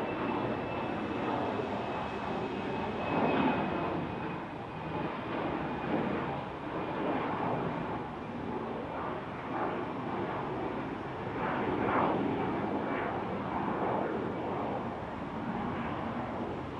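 An airliner's engines running, heard as a steady rushing noise that swells and eases, with a faint high whine that slowly falls in pitch.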